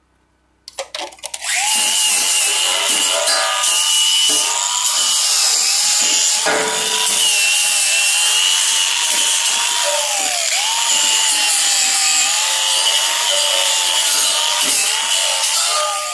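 Handheld angle grinder running against steel. It starts with a few short catches about a second in, then runs steadily with a whine that sags and recovers as it is pressed into the work, and winds down gradually at the end.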